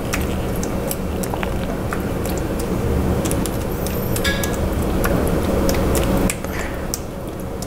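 Silicone spatula spreading chunky meat sauce over a ricotta layer in a ceramic baking dish: wet squishing with light scrapes and clicks against the dish, over a steady low hum.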